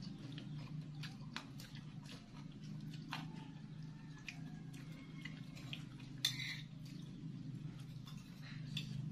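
Metal spoon clinking and scraping on a ceramic plate during a meal, with faint chewing, over a steady low hum; one louder scrape about six seconds in.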